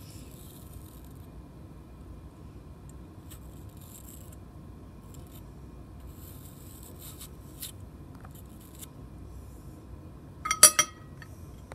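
Craft knife cutting and scraping into apple flesh in short, soft scratches, then a loud, brief clatter with a ringing clink near the end as the metal knife is set down on a china plate.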